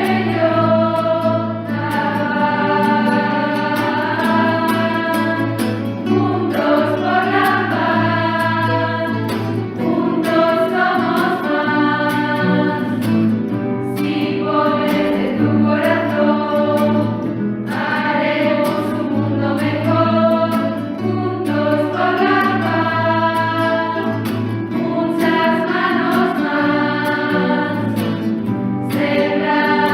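Choral music: a choir singing long held phrases over a steady low accompaniment.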